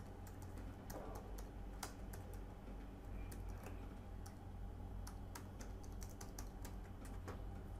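Typing on a computer keyboard: irregular, scattered key clicks over a faint low background hum.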